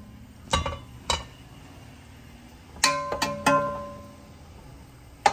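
A metal ladle knocking against a metal cooking pot about six times, each strike ringing briefly, as curry is served and spread into the pot.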